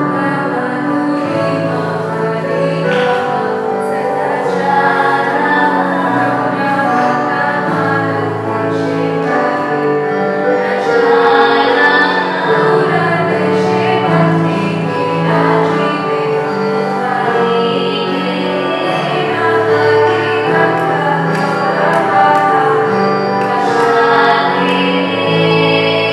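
A group of women singing a Bengali devotional song together into microphones, in long held notes that move from one to the next without pause.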